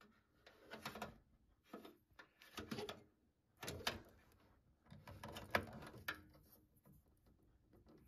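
Handling sounds of a SATA data cable being routed through a PC case and pushed into a motherboard SATA port: about five short bursts of plastic scraping, cable rustling and clicks, with a sharper click about five and a half seconds in.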